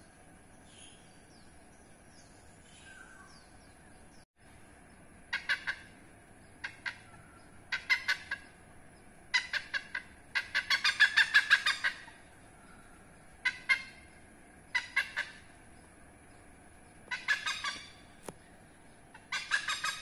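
Oriental pied hornbill calling: loud bouts of rapid repeated cackling notes, starting about five seconds in and coming about nine times, the longest run lasting over a second near the middle.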